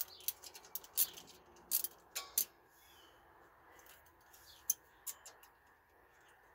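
Irregular sharp metal clicks and clinks of a ratchet being worked on an ATV's top front brake caliper bolt. Most come in the first two and a half seconds, with a few more about two seconds later.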